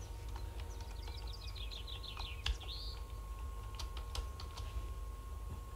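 Faint bird chirping over a low steady hum: a quick run of falling chirps ending in one rising note, with a few light clicks at intervals.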